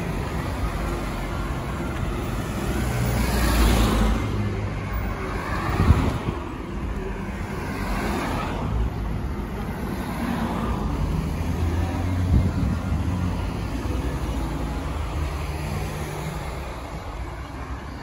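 Road traffic on a busy main road: several cars pass close by one after another, each swelling and fading over a steady low rumble of engines and tyres.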